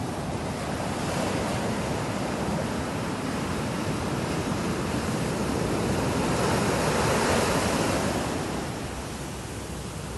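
Sea surf washing up the beach as a steady rush, building to its loudest about seven seconds in and then easing off.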